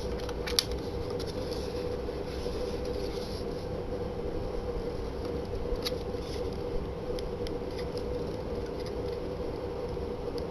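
A steady mechanical hum, like a fan or air conditioner running, with a few faint clicks and taps of handling.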